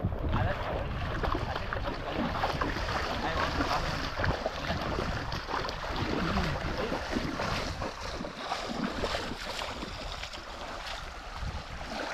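Wind buffeting the microphone over the rush of shallow river water.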